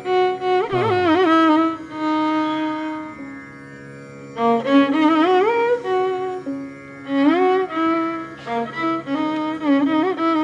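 Instrumental Indian classical background music: a single melody line with sliding, wavering ornaments over a steady held drone note, pausing briefly twice.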